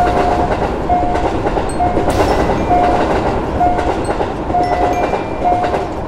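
A passenger train running over a level crossing, with a steady rumble and clatter of the cars on the rails that eases slightly near the end. Over it, the crossing's warning signal sounds a single short tone about once a second.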